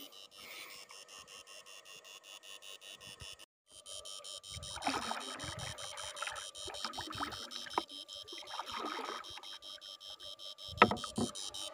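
Electrofishing unit running off a battery, giving an even electronic whine that pulses several times a second and breaks off for a moment about three and a half seconds in. From about four seconds in there is water sloshing around the boat, and there are a couple of sharp knocks near the end.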